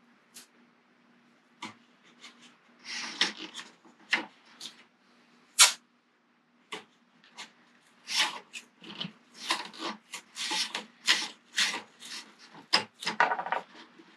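Half-inch masking tape being pulled off the roll, torn and wrapped around a carbon rod blank to build a tape arbor for the reel seat. It comes as a string of short rips and rubs, a few at first, then many in quick succession over the last six seconds.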